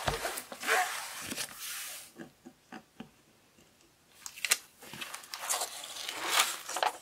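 Rustling and crinkling from a diamond painting canvas and its plastic protective film being handled, in two spells with a quiet gap between them and a sharp click about four and a half seconds in.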